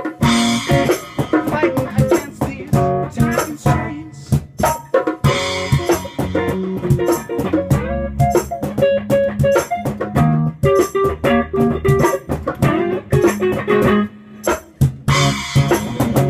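A small band playing live with no vocals: strummed electric guitar and electric bass over a steady beat slapped on a cajon, with cymbal hits.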